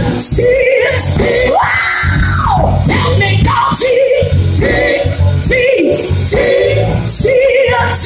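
Live church worship music played loud: a singer holding wavering notes over a steady bass line.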